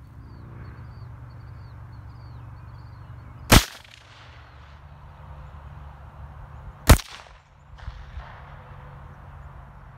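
Two loud gunshots about three seconds apart, each with a short echoing tail.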